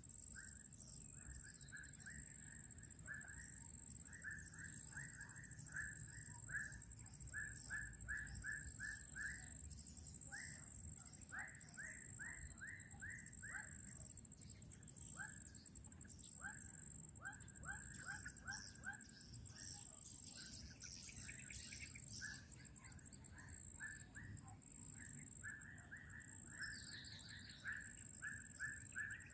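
Runs of short, repeated animal calls, several a second, keep starting and stopping over a steady high-pitched insect drone; a few higher chirps come in near the end.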